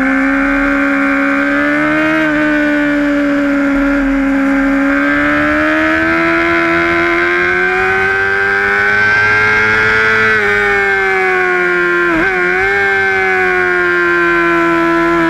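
A Honda sportbike's engine at high revs, recorded onboard as it laps a racetrack. Its pitch climbs slowly under acceleration, drops at a gearchange about ten seconds in, dips and rises again briefly near twelve seconds, then eases off near the end.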